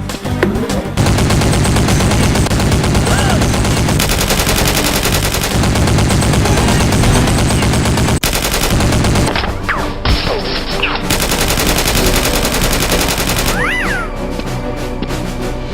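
Rapid, sustained automatic gunfire sound effects, shots packed closely together in long bursts, with music underneath.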